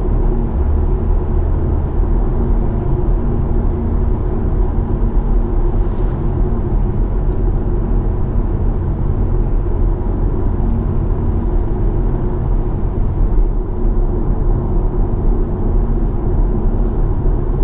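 BMW M140i's turbocharged straight-six with an M Performance exhaust, heard inside the closed cabin while cruising at low revs between 1,000 and 2,000 rpm. It gives a steady low rumble with no drone.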